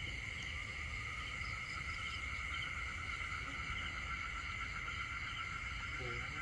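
Steady night chorus of insects and frogs: a continuous high-pitched trilling drone with no break.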